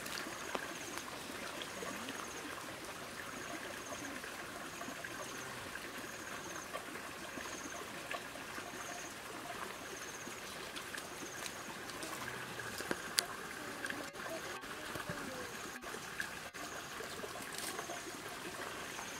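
Outdoor countryside ambience: a steady hiss, with a short, high trill repeating about once a second and a few faint snaps and rustles from the grass.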